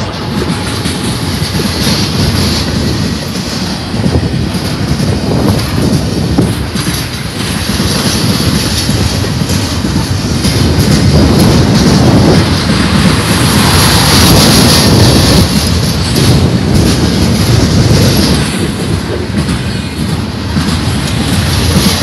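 Double-stack intermodal freight train's well cars rolling past, a loud steady rumble and clatter of steel wheels on the rails, with wind buffeting the microphone.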